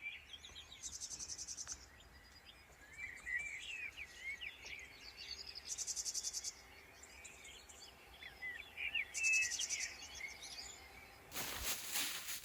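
Forest birds singing in short, curving chirps, with short, rapid high trills (insect-like stridulation) repeating every few seconds. A loud burst of rustling noise starts near the end.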